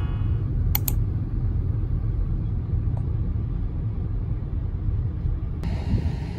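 Road rumble inside a moving car's cabin, with two quick clicks a little under a second in. Near the end a steady hiss joins the rumble.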